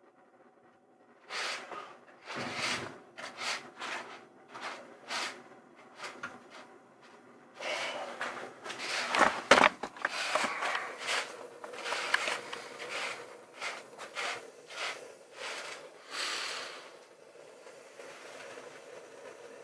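A run of short, irregular noisy bursts and scuffs as a propane gas burner is hooked up and handled. Near the end they give way to a steady low sound from the lit burner.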